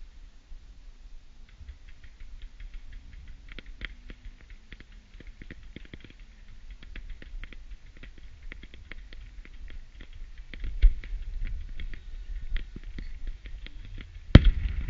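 Fireworks display crackling: a steady stream of many small pops and clicks, with a heavy bang about eleven seconds in and the loudest bang near the end as a shell bursts.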